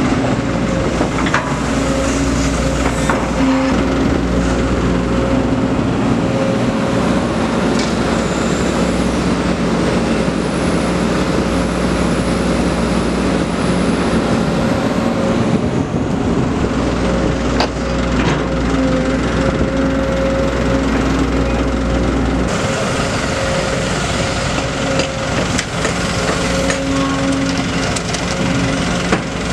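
Sumitomo SH210 long-reach excavator's diesel engine running steadily under working load, with a constant hum and a few short knocks as it digs and swings sediment into a dump truck.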